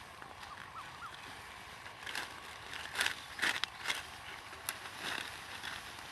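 Irregular swishing and rustling of dry wheat stalks being cut by hand with a sickle, several quick strokes close together in the middle.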